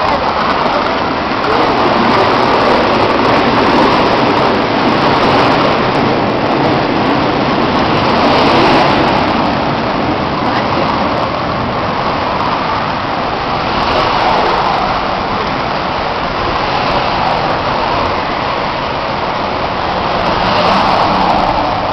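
Loud, steady roar of road traffic, swelling several times as vehicles pass.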